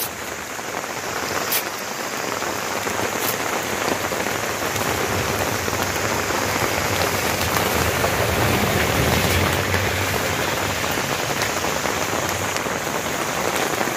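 Heavy rain falling steadily, a continuous hiss that builds over the first few seconds and then holds.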